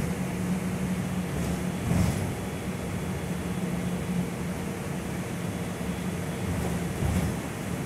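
Interior of a Gillig low-floor city bus under way: a steady low engine drone over road and tyre noise, with brief clicks about two seconds in and again near the end.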